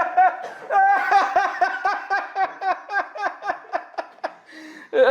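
A man laughing hard in rapid, rhythmic bursts of about three or four a second, tailing off near the end.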